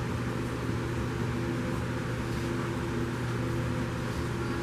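A steady low machine hum over an even hiss, like a fan or air-handling unit running in the room.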